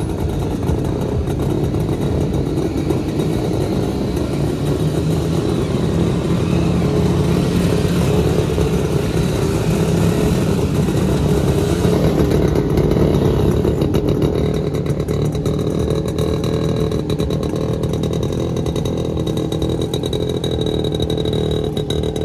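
Vintage two-stroke Jawa motorcycle engine running steadily, a little louder through the middle.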